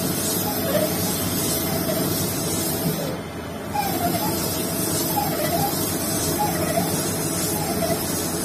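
Lathe running while boring out a motorcycle cylinder: a steady machine noise with a constant tone, and a short warbling squeak coming back about once a second.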